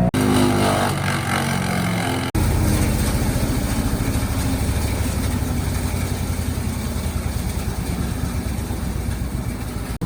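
Engine of a 5-inch wood chipper running. Over the first two seconds its pitch falls, then it switches abruptly to a steady run with a fast, even pulsing.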